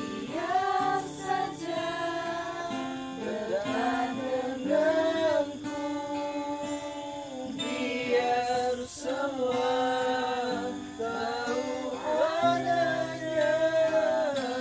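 Acoustic guitar being strummed while a group of voices sings along, sung phrases held and bending in pitch.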